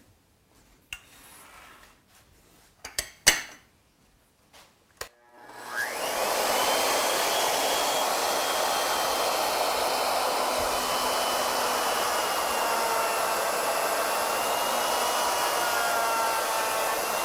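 A few clicks and knocks, then a router on an ornamental milling machine starts about five and a half seconds in. Its whine rises as it spins up, and it then runs steadily at full speed.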